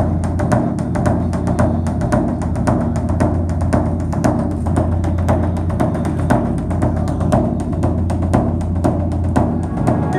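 Background music: a steady low drone under rapid, regular drum strokes.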